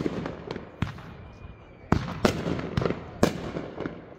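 Aerial fireworks going off in a quick string of sharp bangs, about seven in four seconds, each followed by a trailing crackle and echo.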